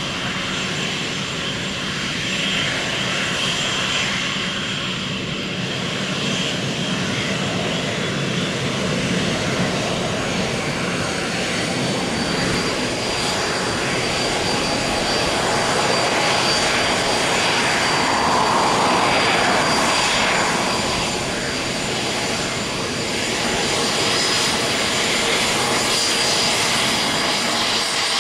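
Airbus A320-family twin-jet airliner's engines running on the runway: steady jet engine noise with a thin high whine that rises slowly in pitch over the first half, growing a little louder about two-thirds of the way through.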